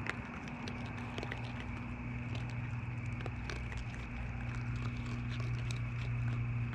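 Raccoons eating seed from the ground, with many small irregular crunching clicks, over a steady low hum.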